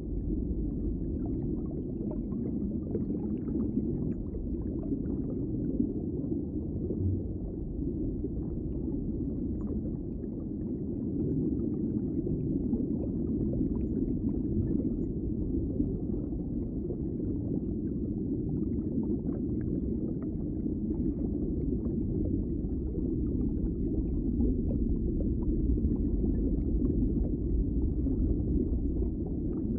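Underwater ambience: a steady, muffled low rumble of water with faint scattered crackles.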